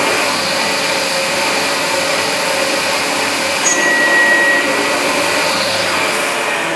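MillStep PA1070V3 Z300 CNC mill's spindle running while a thread mill cuts a thread in an aluminium block, under a steady hiss of air from a blow nozzle. A thin high whistle sounds briefly about four seconds in.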